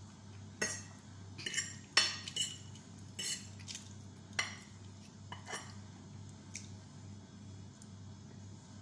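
Metal cutlery clinking and scraping against a plate as dry instant noodles are stirred and lifted: a dozen or so sharp clinks, busiest in the first six seconds and sparser after.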